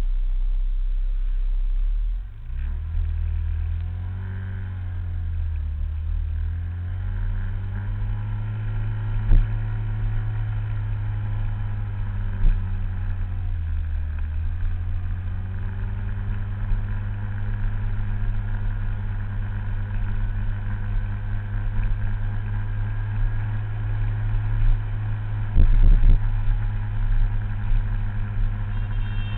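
Small scooter engine running under way, heard from on board with wind rumble on the microphone. Its note dips and rises a few times in the first half, then holds steady, and there are a few short knocks.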